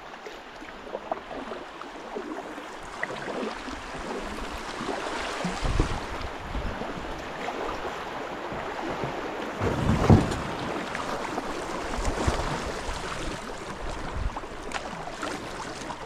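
Rushing whitewater splashing around a packraft running river rapids, building in strength, with a few low thuds. The loudest thud comes about ten seconds in.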